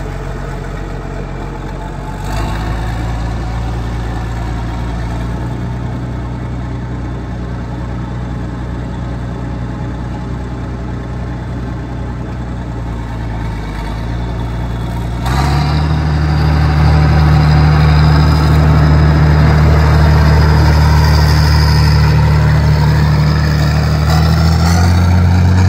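White 2-105 tractor's six-cylinder diesel engine running as the tractor drives. Its note rises slightly about two seconds in, then about fifteen seconds in it revs higher and gets much louder, holding there to the end.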